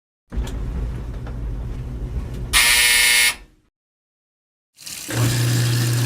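Separate machine sound effects: a low engine rumble for about two seconds ending in a short, loud vehicle horn blast; after about a second of silence a steady low machine hum starts.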